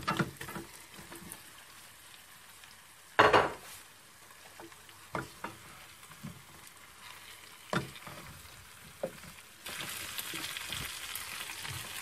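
Raw potato wedges knocking into a pan of chicken and onions, then a wooden spatula knocking and scraping as they are stirred, with one loud thump about three seconds in. From about ten seconds in, a steady sizzle as the potatoes and chicken fry in the butter.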